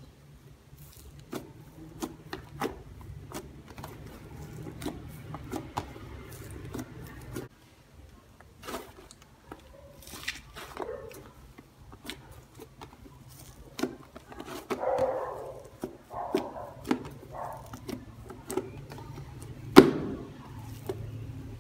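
Fluffy shampoo slime being stretched, poked and pressed by hand: a run of sharp pops and clicks as trapped air bursts, with a few short squishes, the loudest pop near the end.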